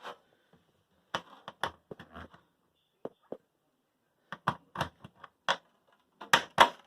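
Irregular sharp clicks and taps of a tool and hands working on the door boot and its fittings of a Samsung front-load washer, coming in loose clusters, loudest near the end.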